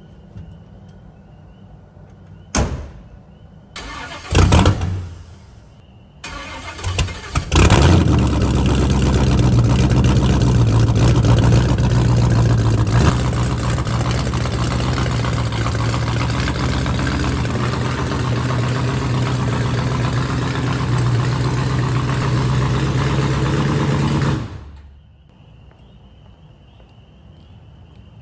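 A truck engine is cranked in a few short bursts and then catches and runs steadily at idle for about sixteen seconds before cutting off abruptly.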